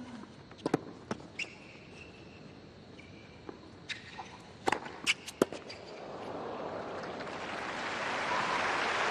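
Tennis rally on a hard court: sharp racquet strikes and ball bounces at irregular spacing, with brief sneaker squeaks. From about six seconds in, crowd applause swells and keeps growing.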